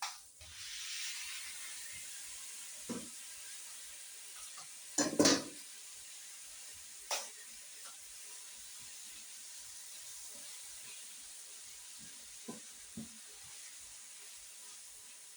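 Minced meat sizzling in a hot frying pan, a steady hiss that slowly fades, with a few knocks of a utensil against the pan, the loudest about five seconds in.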